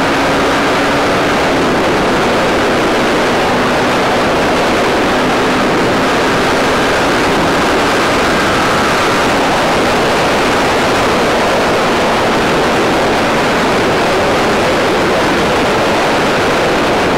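Wind rushing over the microphone of a Yamaha R15 V3 motorcycle riding at speed: a steady, loud noise that buries the engine. A faint steady hum sits underneath for the first several seconds.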